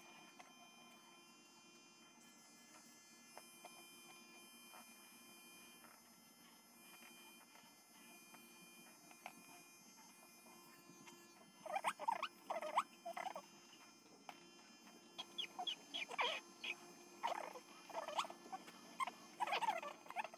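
Small electric pet trimmer running faintly with a steady hum. From about twelve seconds in, the small dog being trimmed gives runs of short, squeaky whimpers that rise and fall.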